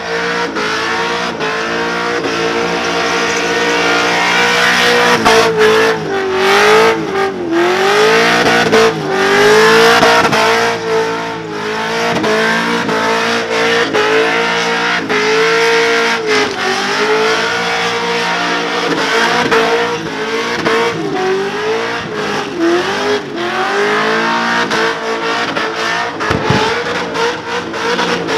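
V8 ute doing a burnout: the engine is held at high revs with the rear tyres spinning. The pitch stays steady but drops briefly and climbs back several times as the throttle is worked.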